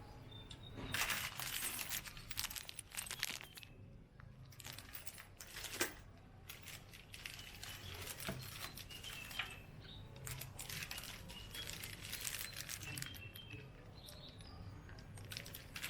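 Packaging being handled and unwrapped, with crinkling and rustling in irregular bursts and brief pauses between them.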